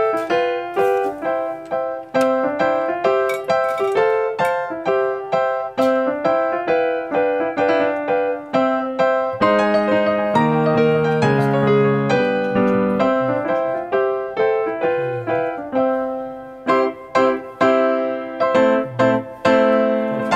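Background music: a bouncy piano or keyboard tune with a steady rhythm of short notes.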